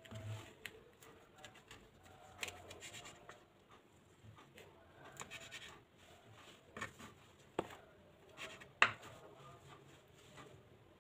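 Hands tearing apart a dry smoked mackerel tuna on a bamboo cutting board: scratching and crackling of the dried skin and flesh, with small clicks and a few sharp knocks against the board, the loudest two late on.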